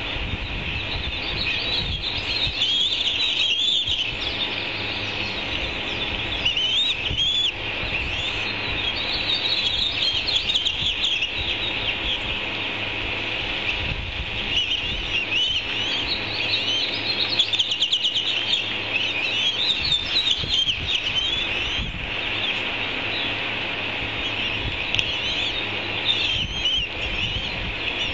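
Raptor chick's high-pitched begging chirps, repeated rapidly and almost without pause, over a low rumble.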